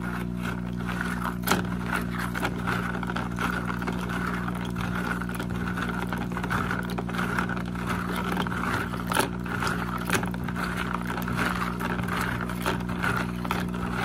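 Small aquarium filter-media rings being rubbed and swished by hand in a bowl of water, with many small clicks and splashes, over the steady hum of a running hang-on-back aquarium filter motor.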